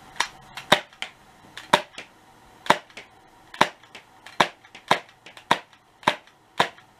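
Glock 19 replica BB pistol firing about ten sharp shots in quick succession, one every half second to one second.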